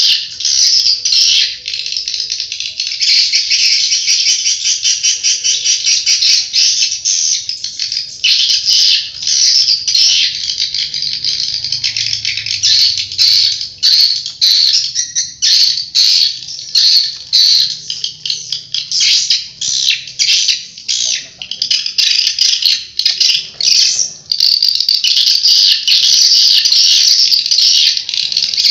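Swiftlet lure call (suara panggil walet) played from the loudspeakers of a swiftlet house: dense, high-pitched twittering chirps. It runs continuously at first, turns choppy and pulsing through the middle, and is continuous again near the end.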